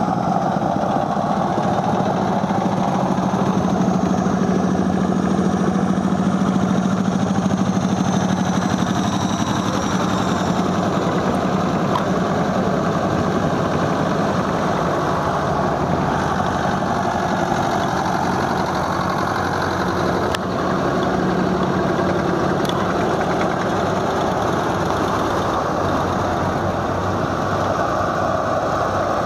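Old farm tractor engines running steadily as a convoy of tractors drives slowly past, one after another.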